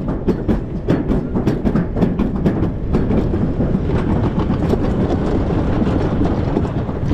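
Summer toboggan sled running fast down a stainless-steel trough track: a loud rumble with a rapid clatter of about four clicks a second as it passes over the joints between track sections. About three seconds in, the clicks give way to a smoother, steadier rumble.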